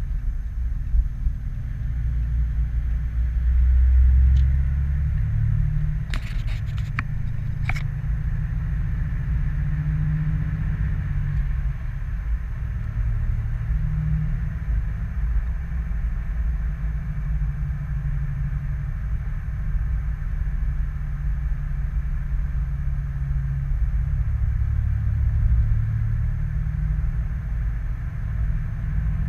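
2018 Ram 3500's 6.7-litre Cummins turbo-diesel running with a steady low rumble, just after a new dual-disc clutch has gone in. A few sharp clicks sound about six to eight seconds in.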